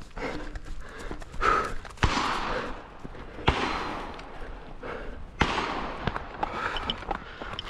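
Heavy, gasping breaths of a man running while carrying a log of over 100 pounds, three hard exhales in a row, with the knocks and rattle of footsteps and gear.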